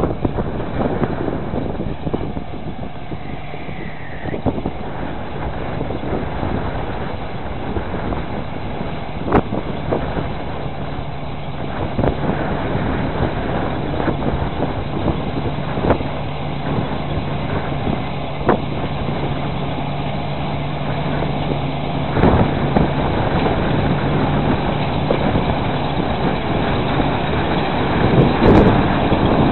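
John Deere 630 combine harvester running while harvesting: a steady, dense engine and machinery noise. A low hum holds for about ten seconds in the middle, and a few sharp knocks break through now and then.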